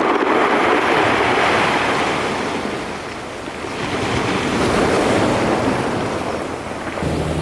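Sea waves surging and washing in, swelling and fading slowly, with some wind on the microphone. A steady low hum comes in near the end.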